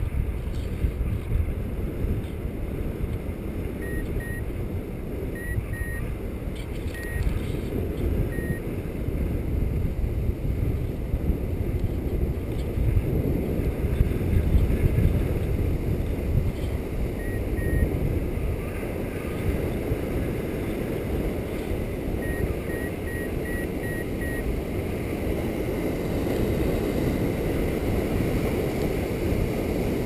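Airflow buffeting the microphone of a camera on a flying paraglider, a steady low rush, with a few runs of short high beeps from the pilot's variometer.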